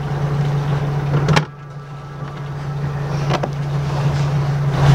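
Sailboat's inboard diesel engine idling with a steady low hum. A sharp knock comes about a second and a half in, after which the sound is quieter for a moment and builds back up, with another click a couple of seconds later.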